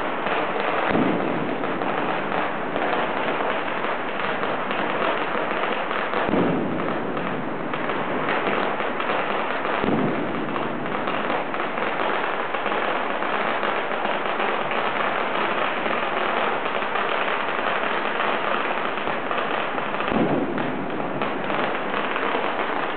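Fireworks and firecrackers going off in a dense, unbroken crackle, with a few deeper booms standing out about a second in, around six and ten seconds in, and near the end.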